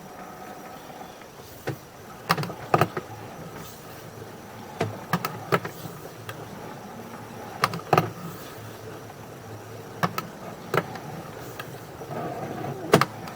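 Sewer inspection camera gear with a steady low hum, and irregular sharp clicks and knocks as the push cable is handled and fed into the line.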